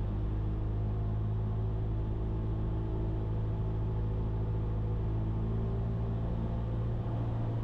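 Cessna 172's piston engine and propeller running steadily in flight: an even, unchanging drone.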